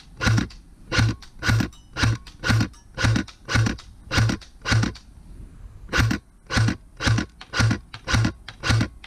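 King Arms Black Rain Ordnance airsoft electric rifle firing single shots at a steady pace, about fifteen in all at roughly two a second, with a break of about a second near the middle.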